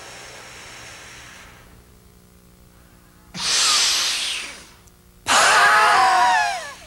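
A woman's forceful, exaggerated exercise breathing: a loud hissing breath about three seconds in, then a louder open-mouthed breath near the end that turns into a voiced groan falling in pitch.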